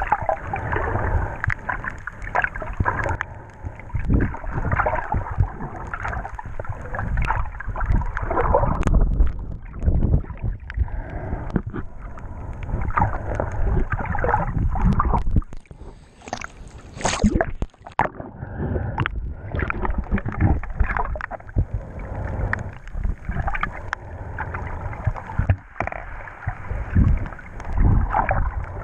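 Muffled underwater water noise picked up by a camera held under the surface: continuous sloshing and gurgling with many irregular knocks, dipping briefly about sixteen seconds in.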